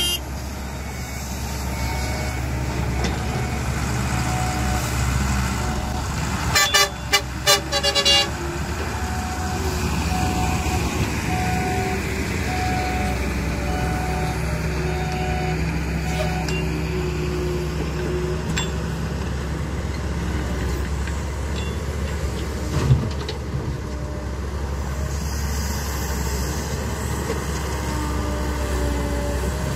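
Diesel engines of a Cat hydraulic excavator and a dump truck running steadily. About seven seconds in a truck horn gives about five short toots, followed by a backup beeper beeping about once a second as the dump truck reverses into position, and a single thump later on.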